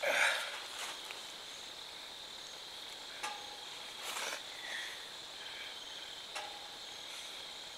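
Crickets chirring steadily in a high, even drone. A loud rustle near the start and a few brief clicks and rustles later come from the body and antlers of a downed whitetail buck being moved on the grass.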